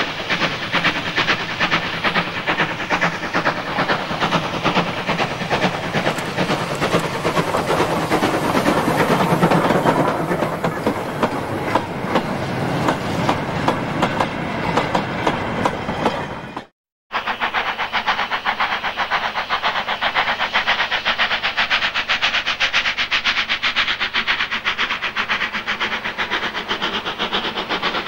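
Steam locomotive working hard past the microphone with a loud exhaust beat. It is loudest about nine to ten seconds in, followed by its train rolling by. After a sudden break about seventeen seconds in, another steam locomotive approaches working hard, with a rapid, even exhaust beat.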